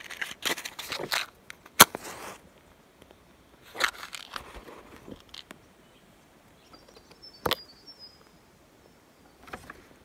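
Rustling and snapping of dry twigs and cardboard egg cartons being handled at the base of a brush-pile bonfire as it is lit with a lighter. There are several sharp clicks, the loudest about two seconds in and another about seven and a half seconds in.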